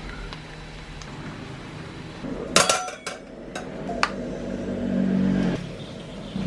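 Kitchen utensils clinking and knocking against a bowl and dishes while a sauce is made, with a few sharp clinks about two and a half to four seconds in. A low steady hum follows for about a second near the end.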